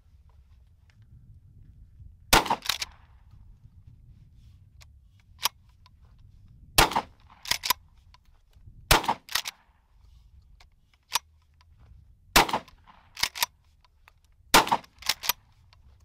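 Rock Island All Gen 12-gauge pump-action shotgun firing five shots, about two to four seconds apart. Each shot is followed within a second by the clack of the pump being racked to eject the hull and chamber the next shell.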